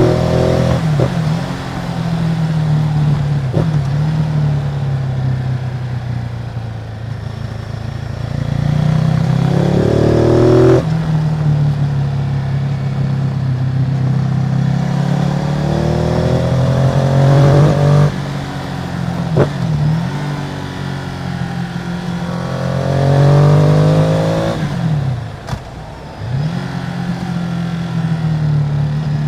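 Ducati Multistrada 950's 937 cc L-twin engine on its stock exhaust, running steadily and then rising in pitch three times, each rise broken off sharply, with two brief drops in revs near the end.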